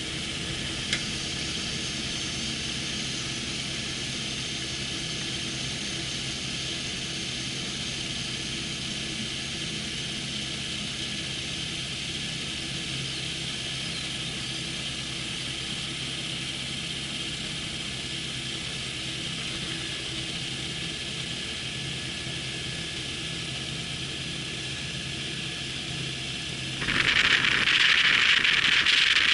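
MTO Sport autogyro's pusher engine and propeller running steadily at low power, heard from the open cockpit while it rolls along the ground, with a short click about a second in. About 27 seconds in, a much louder rushing noise comes in over the engine.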